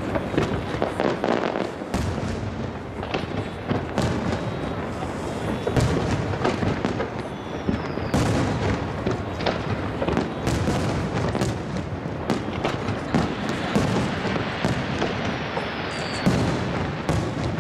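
Aerial firework shells bursting in quick succession: a continuous barrage of booms and sharp cracks, with the bangs echoing off the surrounding hills. Twice a faint falling whistle cuts through.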